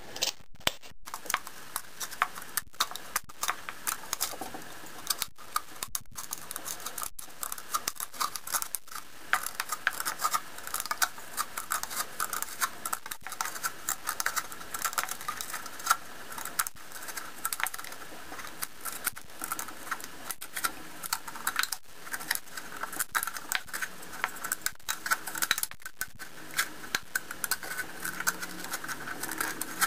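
Small scissors of a red multi-tool pocket knife cutting around a thin aluminium pop can along a marked line: a quick, irregular run of short clicking snips.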